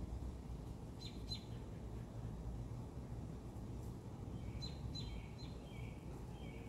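Bird chirping: quick falling chirps, a pair about a second in and a run of several more with a few shorter notes near the end, over a steady low background rumble.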